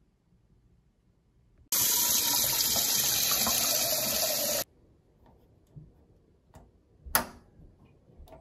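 Tap water running hard into a stainless steel pot for about three seconds, starting and stopping abruptly. Then, near the end, a sharp click and a few smaller clicks as a stove's control knob is turned.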